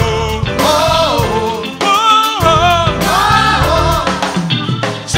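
A male vocal group singing an upbeat Christian song together, several voices at once, over instrumental backing with bass and drums.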